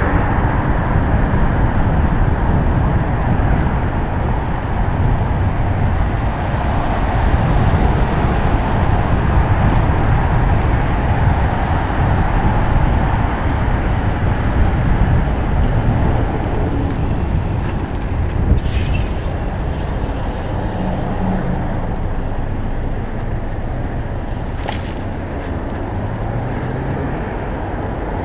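Wind rushing over an action camera's microphone on a moving bicycle, mixed with road and traffic noise. Two short clicks stand out, about six seconds apart, and the noise eases a little toward the end.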